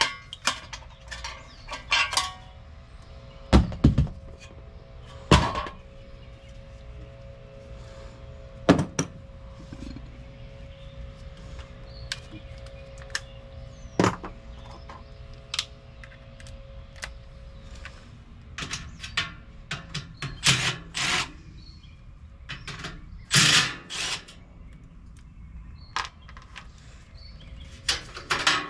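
Scattered knocks, clanks and clicks of hand tools and metal parts being handled during air-conditioner repair work, irregular and of varying loudness, over a faint steady hum that fades out about two-thirds of the way through.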